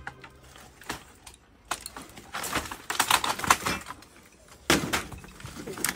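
Dry cane fencing rattling and clattering as a panel of it is pulled and moved, with a dense patch of rattling about halfway through and a sharp knock near the end.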